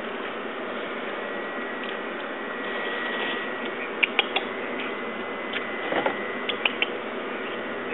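Empty plastic water bottles clicking and knocking together as a puppy noses through a pile of them, a scattered run of light knocks from about halfway through, over a steady background hiss.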